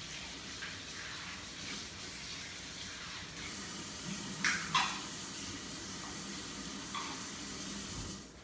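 Kitchen tap running steadily as the espresso machine's portafilter is rinsed out, with two sharp knocks of the filter holder against the sink about halfway through. The water is shut off just before the end.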